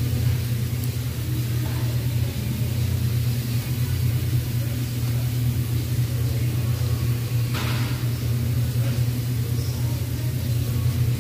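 Steady low rumble with a hiss over it: meat, shrimp and onions sizzling on a tabletop Korean barbecue grill plate, under the drone of the grill's burner and ventilation. A short metallic scrape about seven and a half seconds in.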